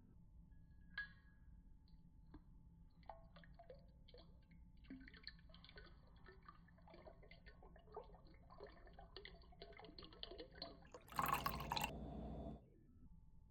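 Tea being prepared: faint scattered clinks, taps and drips of liquid. About eleven seconds in, a louder rush of noise lasts a second and a half.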